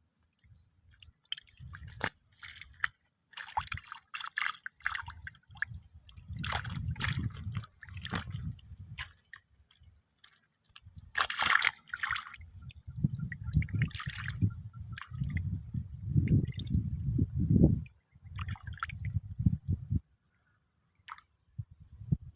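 Water sloshing and splashing in irregular bursts, with dripping.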